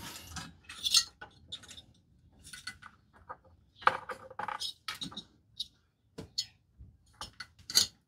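Irregular small clicks, taps and rustles of hands fitting the rubber boot back over a diesel heater's glow plug and handling its wires and plastic housing parts.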